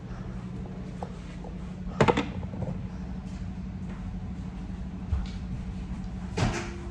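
A sharp knock about two seconds in and a smaller one near the end, over a steady low hum.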